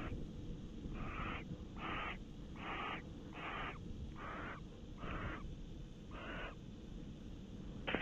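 Barn owl giving a series of harsh, hissing rasps, about one a second, eight in all. This is the food-begging call a female uses to ask her mate for prey.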